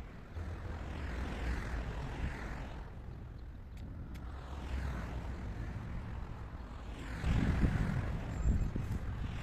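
Traffic noise from passing vehicles, rising and fading twice, over a steady low rumble that is loudest about seven to eight seconds in.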